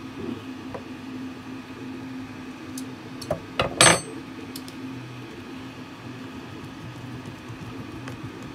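Handling noise from small bolts and 3D-printed plastic gun parts on a wooden table: a few light clicks, then a sharp clatter about four seconds in, over a low steady hum.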